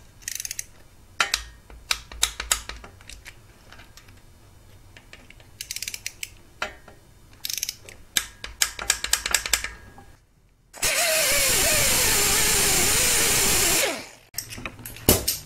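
Ratchet torque wrench clicking in short runs as bolts are tightened down on the air-injection delete cover of a Subaru STI cylinder head. About eleven seconds in, a much louder steady rushing noise with a wavering tone starts suddenly and cuts off after about three seconds.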